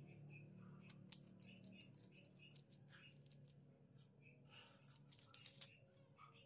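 Near silence: a faint low hum with a few faint clicks from a bolt and a small wooden knob being handled and fitted onto a plywood piece.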